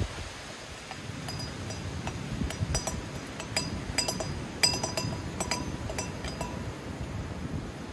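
Light metallic clinks and rattles of a stainless steel percolator's stem and grounds basket knocking against the pot as they are lifted out after brewing, a dozen or so short ringing clinks.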